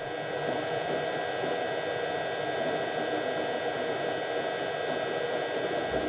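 Steady whir of a home network rack running, dominated by the Ubiquiti USG Pro 4 router's small stock cooling fans: an even rushing noise with a few thin, steady high whines over it. This is the disproportionately loud fan noise of the stock fans.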